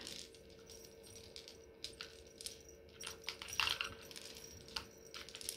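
Small plastic clicks and clinks as a string of Christmas lights with coloured plastic bulbs is handled, the bulbs knocking together. The clicks are scattered, with a denser cluster a little past halfway.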